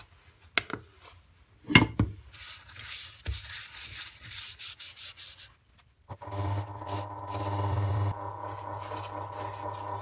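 Cloth rubbing paste onto a wild olive bowl in quick strokes, after a few knocks from handling the paste tub, the loudest about two seconds in. About six seconds in, the Nova DVR XP lathe starts with a steady motor hum and the cloth keeps rubbing on the spinning bowl.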